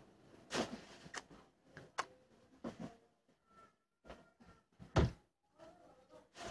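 Scattered knocks, thuds and clicks of objects being handled and set down while a room is tidied, the loudest thud about five seconds in.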